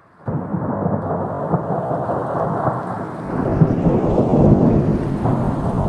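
Wind buffeting an action camera's microphone: a loud, rough rumble that starts suddenly just after the start and grows a little stronger about three and a half seconds in.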